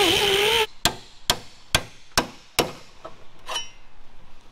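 An angle grinder running on sheet steel, its pitch wavering under load, cuts off abruptly about half a second in. It is followed by hammer blows on sheet metal: about five sharp strikes a little over two a second, getting weaker, then a few lighter taps, one with a short metallic ring.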